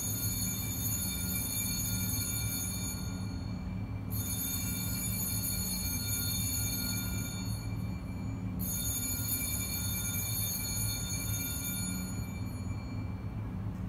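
Altar bell rung three times, about four seconds apart. Each ring is a bright, clear tone that lingers and fades, the kind of bell rung at the consecration during Mass.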